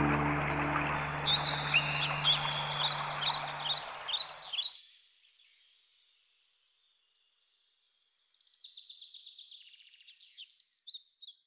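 Birds chirping over the held notes of ambient music; the music fades out about four seconds in. After a short quiet gap, fainter bird chirps and quick trills come back near the end.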